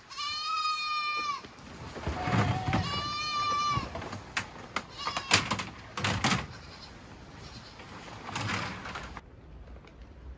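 Wild goats bleating: three loud, steady calls in the first four seconds, the middle one lower-pitched, each dropping at its end. A few shorter, rougher sounds follow, then it goes quieter near the end.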